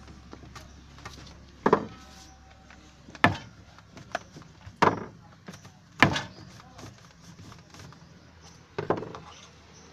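Five loud, sharp knocks, each with a short ringing tail, spaced irregularly about one to three seconds apart. A few fainter clicks fall between them.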